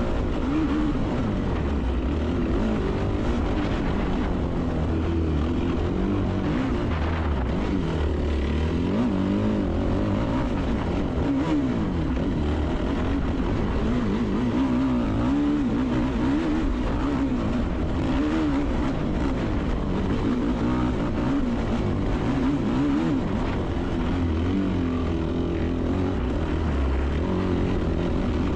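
Yamaha YFZ450R race quad's single-cylinder four-stroke engine revving hard, heard close up from the quad itself, its pitch rising and falling continually with the throttle and gear changes as it is ridden at race pace over a dirt trail.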